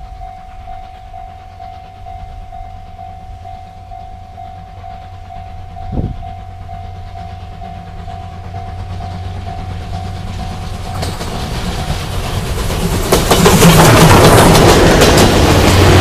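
Level-crossing warning bell ringing in a steady, evenly pulsing tone while steam locomotive C57 180 approaches, with one low thump about six seconds in. From about ten seconds in the train's rumble and rail clatter swell until the locomotive and its coaches pass close by, loudest in the last few seconds and drowning out the bell.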